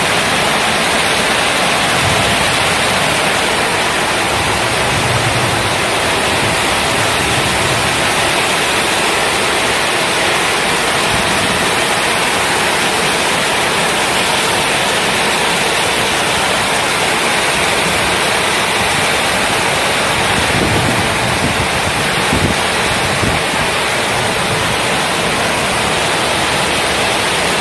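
Heavy tropical downpour: a steady, loud hiss of rain falling hard on roofs and a flooded street.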